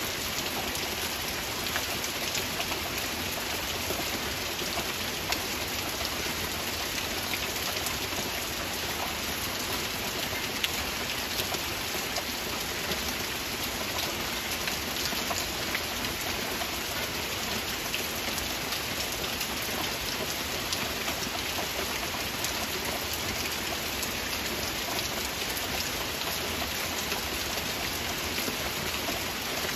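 Heavy rain falling steadily: an even hiss of rain with many sharp individual drop hits scattered through it.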